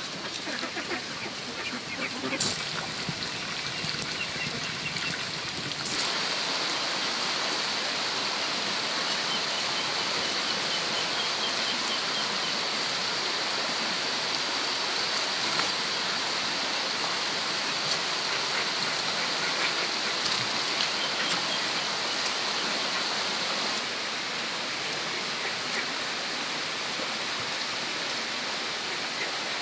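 Steady rushing of a stream running over rocks, setting in about six seconds in and easing a little near the end, with a few faint bird chirps.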